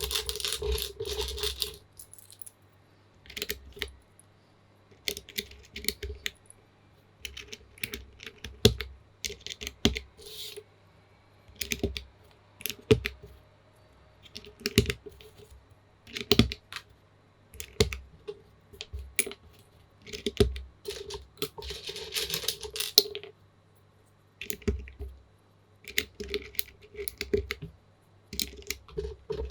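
Typing on a plateless TU40 mechanical keyboard with lubed Gateron Pro Milky Yellow linear switches and XMI Cyrillic keycaps, in bursts of keystrokes with short pauses between. Fast runs of strokes come at the start and again about twenty-two seconds in.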